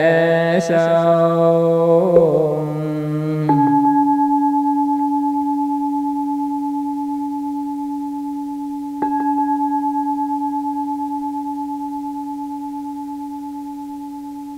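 A monk's chanting voice ends the verse on a long, wavering held note. A Buddhist bowl bell is then struck twice, about three and a half seconds in and again at about nine seconds. Each stroke rings on in a steady, slowly fading tone.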